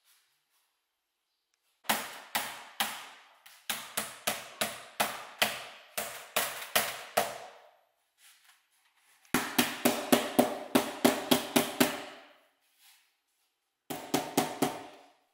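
White rubber mallet knocking on a wooden cabinet carcass, driving its joints home during glue-up: three runs of quick, evenly spaced knocks, each with a short ring, separated by brief pauses.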